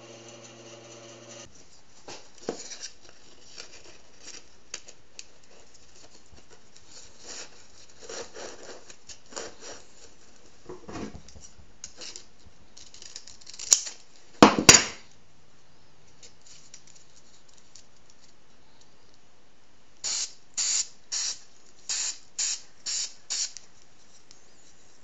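Tin snips cutting through a strip of sandpaper, with scratchy handling noise and the loudest crunches of the cut a little past halfway. At the very start a bandsaw's hum cuts off. Near the end a can of spray adhesive gives about seven short hisses.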